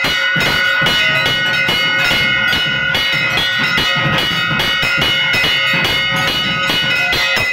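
Metal bells ringing continuously over fast, steady drumming: loud, driving festival percussion for a trance dance.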